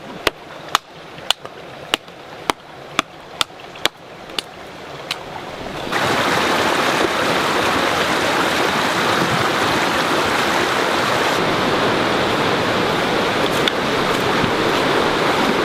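A hatchet chopping a dead branch: about ten sharp cracks, roughly two a second. About six seconds in, a steady rush of creek water takes over, loud and even.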